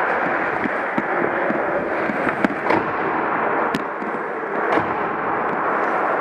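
Several sharp cracks of hockey pucks and sticks striking in an ice rink, scattered over a steady rink din.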